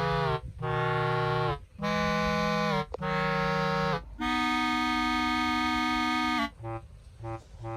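Background music: a few held chords about a second each, then one long held chord, then short detached notes near the end.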